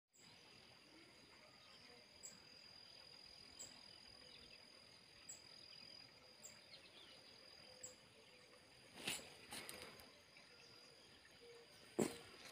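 Faint outdoor ambience: a steady high insect trill, with short high chirps every second or two. Two brief knocks stand out, about nine and twelve seconds in.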